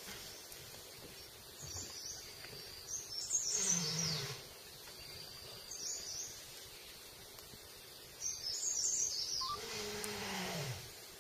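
Outdoor wildlife ambience: a bird chirps in short repeated bursts over a steady high insect drone. Twice, about four and ten seconds in, a low call falls in pitch.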